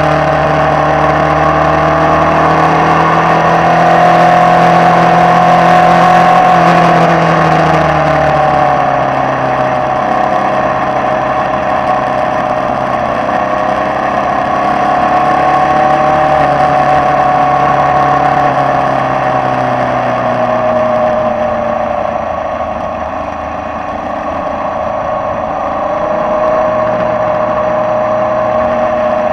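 Formula Vee race car's air-cooled Volkswagen flat-four engine at racing speed, heard close up from onboard. The note climbs under acceleration and drops as the driver lifts and shifts: falling about eight seconds in, climbing again, dipping around twenty seconds in and rising once more near the end.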